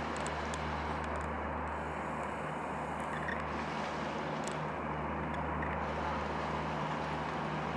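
Steady low engine drone of a boat under way, an even hum over a constant background hiss.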